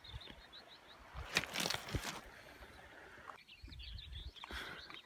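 Small birds chirping and calling, short high notes repeated in quick runs, with a brief rustling noise about a second and a half in.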